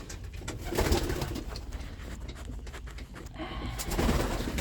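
Racing pigeons cooing in a loft.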